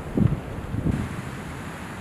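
Distant thunder rumbling and dying away over the first second, then a steady low rush of wind buffeting the microphone.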